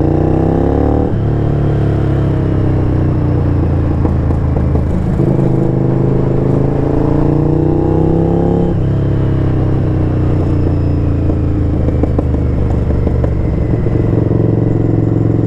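Honda VTR sportbike's V-twin engine accelerating: the revs climb, drop at an upshift about a second in, climb again and drop at a second upshift about nine seconds in, then run more steadily.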